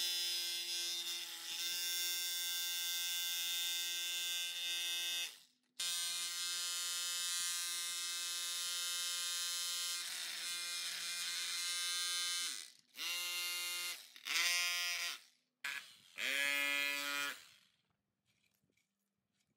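Corded rotary hammer with a chisel bit chipping hardened concrete off a vibrator's motor housing: a steady motor whine that stops briefly about five seconds in, then runs again. After about twelve seconds it comes in three short bursts, each spinning up, and falls silent near the end.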